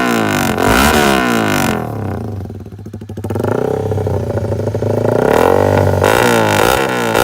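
Honda RS150 motorcycle's single-cylinder four-stroke engine revving through a very open AUN fat-pipe exhaust. It opens with rapid throttle blips, then the revs fall away into a brief quieter spell with a rapid patter. The revs then climb steadily, and quick blips return near the end.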